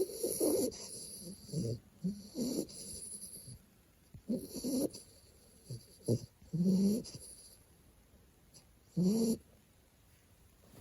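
A two-month-old American bulldog puppy snoring in its sleep: a string of uneven snores every second or two, some carrying a pitched, whiny note.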